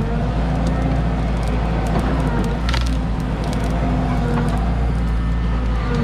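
Cat 313 excavator's diesel engine running steadily, with a number of sharp cracks over it.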